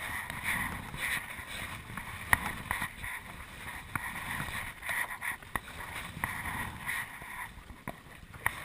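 River water running and splashing around a canoe riding the current, with a few sharp knocks, the loudest about two seconds in.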